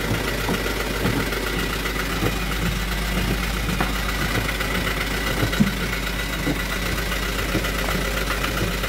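Toyota Dyna 130 HT truck's diesel engine idling steadily, heard from inside the cab, with a few light knocks from hands handling things in the cab.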